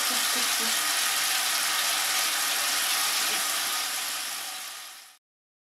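Kitchen tap running steadily into a stainless steel sink, an even hiss that fades out and drops to silence near the end.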